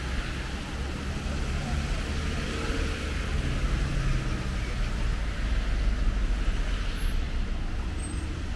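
Road traffic: motor vehicles running past with a steady low rumble.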